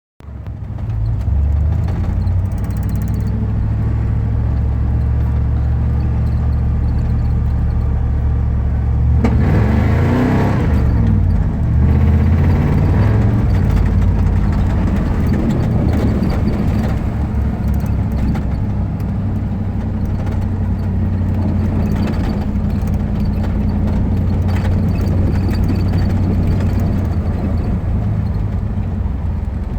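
Truck engine running steadily. About nine seconds in it surges for a few seconds, its pitch rising and falling with a rush of noise, then settles back to a steady run.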